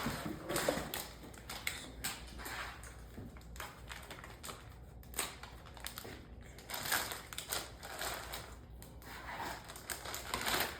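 Packaging rustling and crinkling in irregular bursts as a pair of winter gloves is unwrapped and handled.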